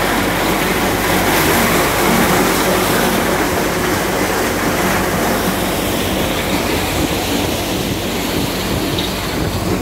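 Multicrop thresher running while threshing maize cobs: a loud, steady mechanical rumble and clatter from the machine.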